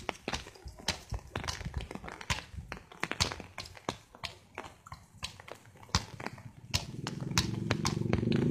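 Irregular sharp slaps and knocks of a basketball bouncing and bare feet hitting a wet concrete court. About seven seconds in, a low steady hum comes in underneath and becomes the loudest sound.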